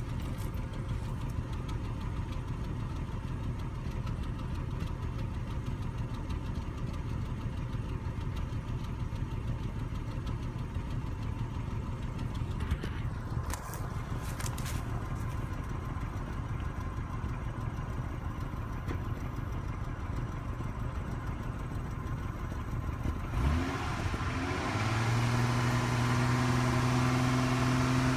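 2002 Acura TL's 3.2-litre V6 idling, heard from behind the car; the owner says its idle is rough and it knocks before fully warm. About 23 seconds in, the sound gets louder and a steady low hum comes in.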